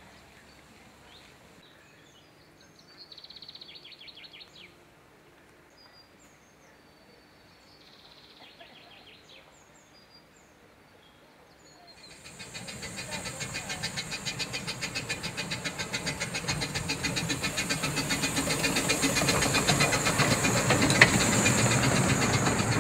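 Scattered bird chirps and two short trills over quiet outdoor air, then from about halfway a narrow-gauge steam locomotive and its carriages approaching with a rapid, regular beat that grows steadily louder toward the end.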